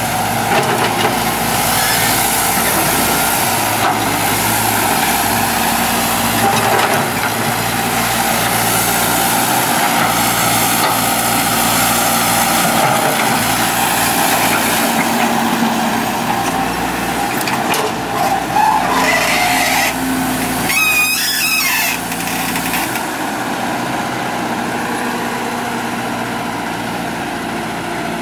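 Kobelco hydraulic excavator's diesel engine running steadily under working load, with hydraulic hiss as the machine digs and swings. A brief high wavering squeal comes about twenty seconds in, and the engine eases off slightly a little after.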